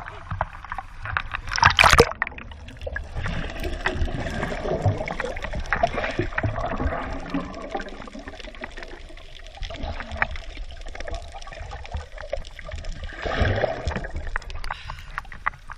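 Water sloshing and splashing around a small boat, with a loud splash just before two seconds in and another surge of splashing near the end.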